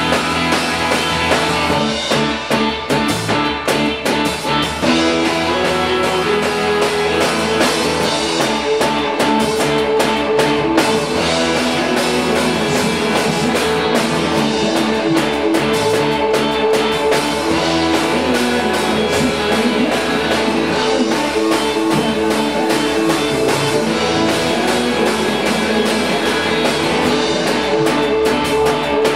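A live rock band playing in a bare concrete garage: electric guitar over a drum kit, keeping up a steady groove.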